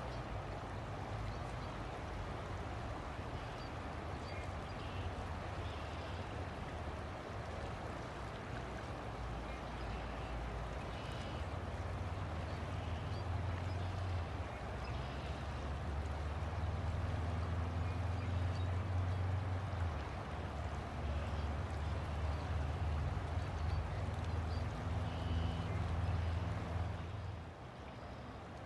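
River water flowing and gurgling. A low steady hum joins it about twelve seconds in, grows louder, and cuts off suddenly near the end.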